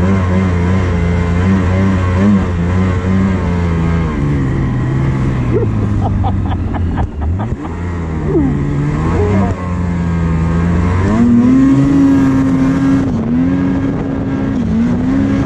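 Snowmobile engine running under throttle as the sled pulls through deep powder. Its revs dip briefly about seven seconds in, then climb and hold higher from about eleven seconds in.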